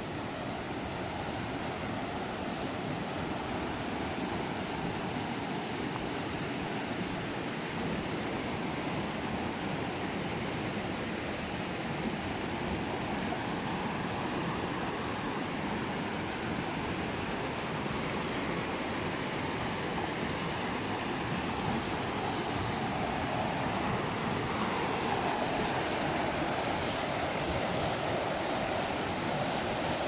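Swollen, muddy river rushing fast over rocks and boulders: a steady rush of water.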